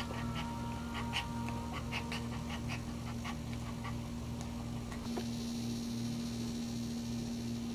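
Maltese dog in labour panting in quick runs of short breaths for the first few seconds, over a steady low hum. After a cut about five seconds in, only the hum and a faint high whine remain.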